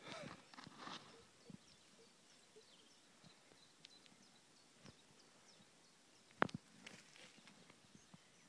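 A dog scrabbling and digging in sandy soil at a rabbit burrow, a few short scratching bursts in the first second, then mostly quiet with scattered faint ticks and one sharp click about six and a half seconds in.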